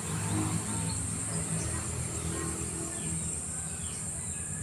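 Insects buzzing in a steady, high-pitched chorus, with a few short bird chirps over a low hum.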